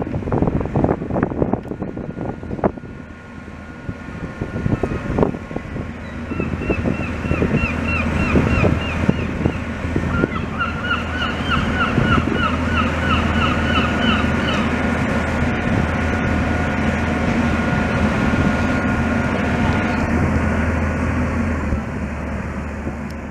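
Excavator's diesel engine running hard under load while lifting steel tram rails, with clanks of metal rails knocking together in the first few seconds. Two runs of rapid, repeated high squeaks in the middle.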